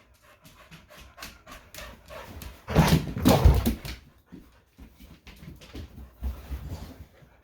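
A dog panting and snuffling in quick, repeated short breaths, with a much louder burst of noisy huffing about three seconds in.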